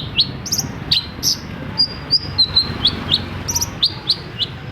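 Long-tailed shrike (cendet) singing: a quick run of short, sharp rising chirps, about three a second.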